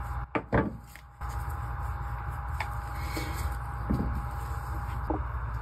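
Tools and 3D-printed plastic parts being handled on a plywood workbench. Two sharp knocks come just after the start, then a few faint taps, over a steady background hiss with a thin steady tone.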